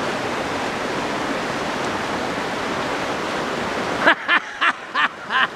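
Steady rushing of river water. About four seconds in it drops away, and a few short sharp knocks follow in quick succession.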